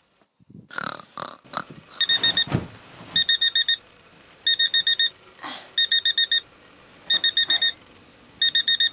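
Electronic alarm beeping in quick bursts of about five short high beeps, the bursts repeating a little over once a second, starting about two seconds in. Before it, bedclothes rustle as a woman stirs, and she lets out a groan between bursts.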